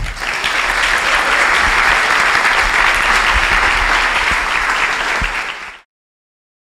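Audience applauding steadily; the applause cuts off suddenly near the end.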